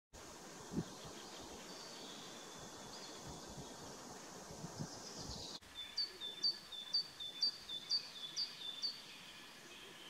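Outdoor ambience with birdsong: from about halfway, a songbird sings a phrase of a high note followed by a slightly lower one, repeated about eight times at an even pace. Before that there is a faint background hiss with a soft low thump about a second in.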